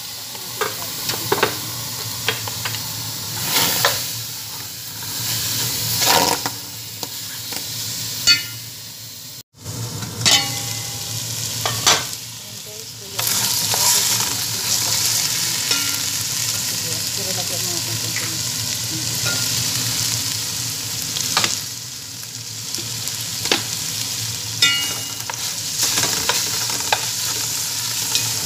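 Chicken pieces sizzling in an aluminium pot as a wooden spatula stirs them, the hiss of frying steady under frequent short knocks and scrapes of the spatula against the pot.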